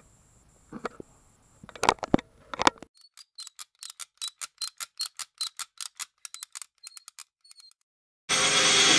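A few scattered knocks, then a quick run of light ticks, about five a second, lasting several seconds. A loud, noisy sound cuts in suddenly near the end.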